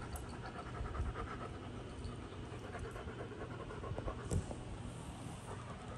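A dog panting steadily, with one brief click about four seconds in.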